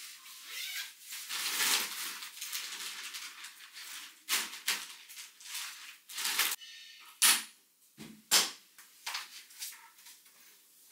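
Rustling with scattered sharp clicks and knocks as belongings are handled in a small room. The two loudest knocks come about seven and eight seconds in.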